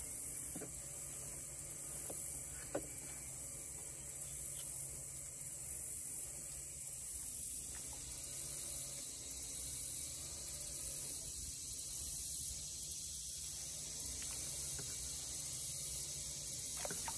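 Steady high hiss over a low rumble of outdoor background noise, with a few faint ticks from a fillet knife working a small fish on a plastic cooler lid.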